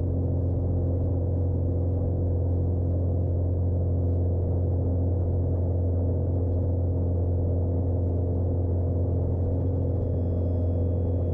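Light single-engine airplane's piston engine and propeller at full takeoff power, a steady low drone heard from inside the cockpit during a long, slow takeoff roll on a soft, muddy strip.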